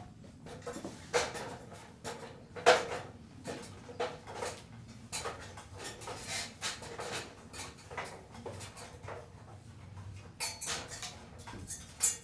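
Footsteps, then an aluminium ladder being climbed while carrying a bucket: irregular knocks and metallic clanks of feet on the rungs and the bucket knocking against the ladder, the sharpest knock about three seconds in and another near the end.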